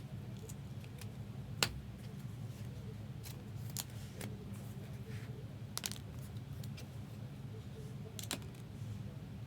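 Trading cards and pack wrappers being handled: a few sharp clicks and light rustling, spaced a second or two apart, over a steady low hum.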